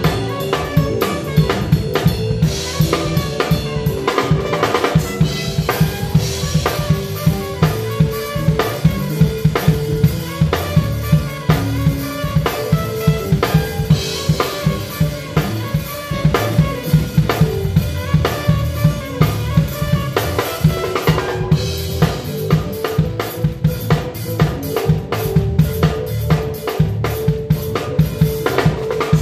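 Drum kit played close up in a steady, driving groove of snare, bass drum and cymbals, over a live gospel band's pitched instruments.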